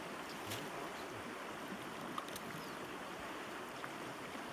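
Steady hiss of river water flowing, with a few faint clicks.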